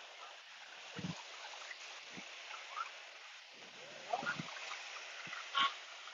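Lakeside harbour ambience: a steady hiss, with a few short low knocks spread through it and faint short chirps.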